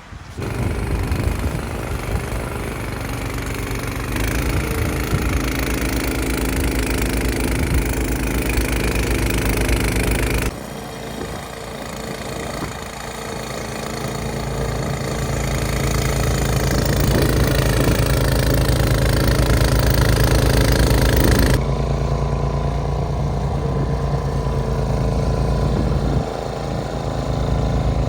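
Snowblower engine running steadily, its tone and loudness changing abruptly twice, about ten and twenty-one seconds in.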